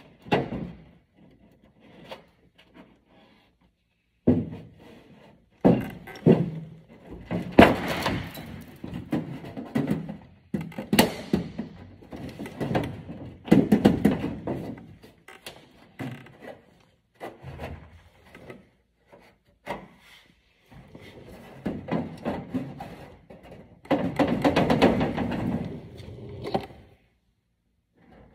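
Irregular thunks, knocks and scraping from hand work on a T-28B fuselage's sheet-metal nose skin and its fittings, with short pauses between and a longer stretch of scraping near the end.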